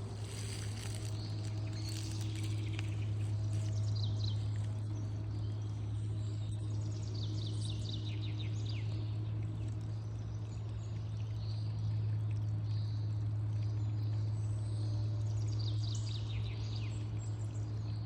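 Songbirds calling, with chirps and a few quick trills that run downward in pitch, over a steady low hum that is the loudest sound throughout.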